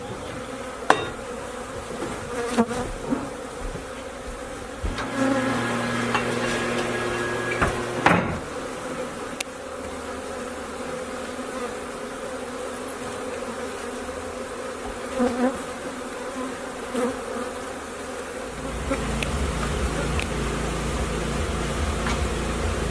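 Honeybees from an opened feral hive buzzing in a steady hum, with a few sharp knocks in the first seconds. A low, steady rumble comes in near the end.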